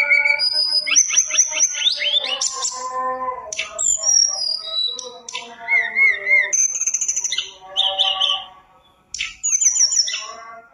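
Hill blue flycatcher (tledekan gunung) singing a long, varied song of clear whistles, rapid trills and slurred notes, rich in mimicked phrases of other birds. There is a brief break about nine seconds in.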